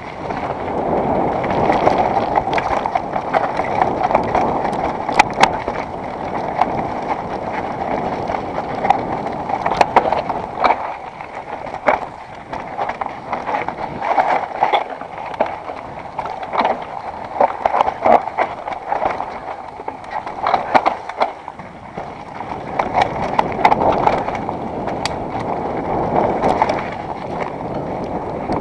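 Mountain bike riding down rough, rocky dirt singletrack: a steady rush of tyres and air, with frequent rattling and sharp clacks as the bike hits rocks and bumps.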